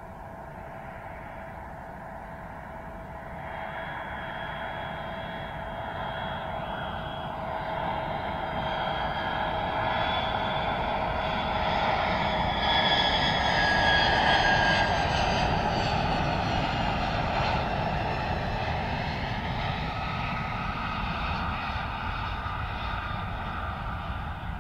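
Antonov An-72's two Lotarev D-36 turbofan engines, a jet whine over a rushing rumble, growing louder as the aircraft comes in low and passes close by about halfway through. After it passes, the whining tones slide down in pitch and the sound eases off as the plane runs on along the runway.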